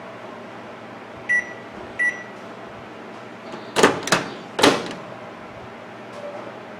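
Samsung microwave oven's control beeper sounding two short beeps about a second apart, then three sharp clacks a couple of seconds later.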